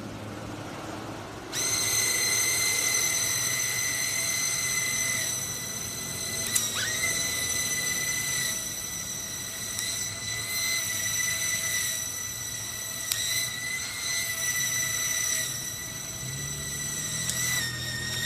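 A flying fidget spinner's three small built-in motors start up about a second and a half in and run as a steady high-pitched whine. Two sharp clicks come partway through, and the pitch dips briefly at the first.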